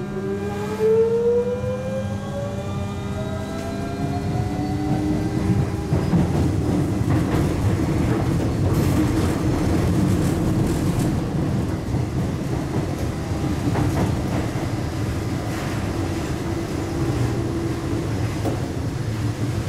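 Busan Metro Line 1 1000-series subway train heard from inside the car: the traction motors whine in a rising pitch for the first six seconds or so as the train gathers speed. After that comes steady running noise of wheels on rail, with a few sharp clicks.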